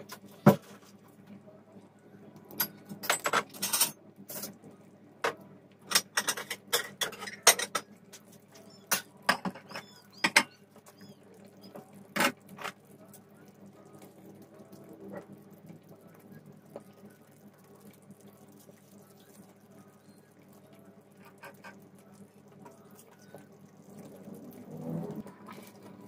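Cooking utensils clinking and clattering against a pot and a frying pan, with a quick series of sharp clinks in the first half. Near the end there is a softer stretch as the sauce is stirred with a spatula. A faint steady hum runs underneath.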